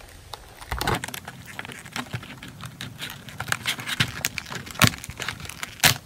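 Clear plastic blister packaging and a plastic parts bag being handled and opened, crinkling and crackling irregularly, with two sharp plastic snaps near the end.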